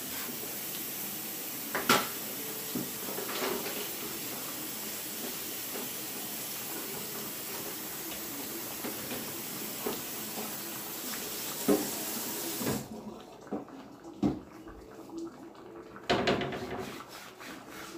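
Kitchen faucet running into a sink while a cutting board is rinsed under it, with a click or two. The water is shut off about two-thirds of the way through, followed by a few knocks and clatters.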